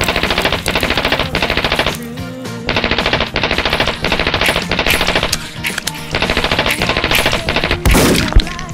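Automatic gunfire sound effects in three long, rapid bursts with short pauses between them, and a louder single bang near the end.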